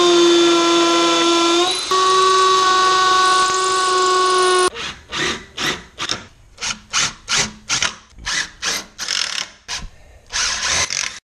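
Cordless drill running with a steady whine that shifts in pitch partway, then run in a string of short trigger pulses, about two a second, driving screws into wooden framing.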